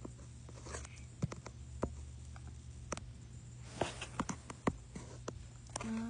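Scattered light taps and clicks of dolls being handled against a front-loading washer, over a steady low hum, with a short low tone just before the end.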